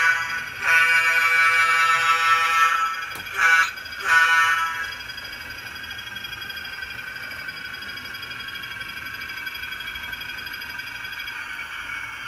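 Diesel air horn from an HO-scale locomotive's sound system blowing a series of blasts: the end of one, then a long, a short and another long one, the grade-crossing signal pattern. After that the locomotive's engine sound runs on as a steady drone.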